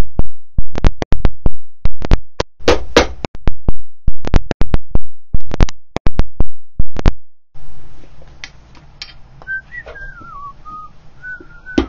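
Cobbler's hammer driving nails into a boot's heel base: about twenty quick, loud blows on the leather heel stack, stopping abruptly about seven seconds in. Near the end a faint wavering whistle comes through over low hiss.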